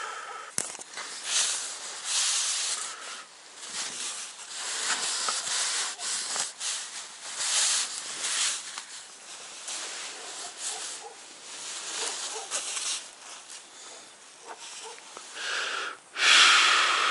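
Heavy breaths close to the microphone, a string of hissy in-and-out breaths about a second long each, mixed with the rustle of nylon tent fabric and down clothing as the camera is handled. The loudest breath comes near the end.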